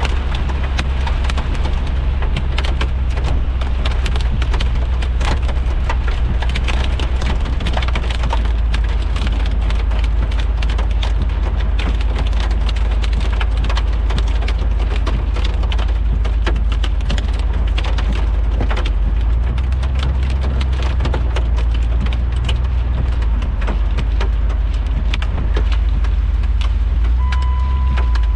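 Rain pattering densely on a vehicle over a steady low rumble of engine and road noise. A short electronic beep sounds near the end.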